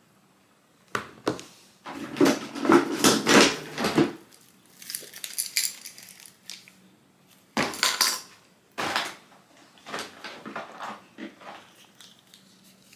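Clatter and rustling from a makeup pouch being opened and rummaged through on a desk, its brushes and compacts knocking about. It comes in several irregular spells, loudest in the first few seconds.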